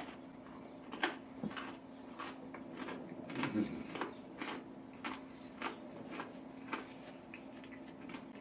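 Chewing cold, extra-crispy fried chicken with dentures: irregular crunches and clicks, about two a second, over a steady low hum.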